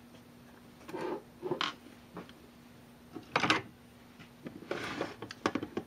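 Plastic latch clips on a clear plastic tool case being worked open: a string of clicks and clacks, the loudest about three and a half seconds in. The clips are a little rough.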